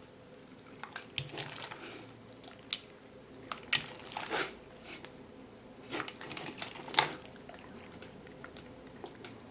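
Slime packed with plastic pearl beads being squeezed and worked by hand: irregular crackly clicks and short squelches.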